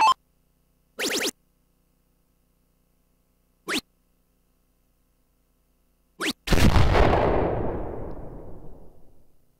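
Electronic soft-tip dart machine's sound effects: short electronic blips as the darts score, then a long explosion-like effect that fades over about three seconds for a "Low Ton" award of 100 points in a turn.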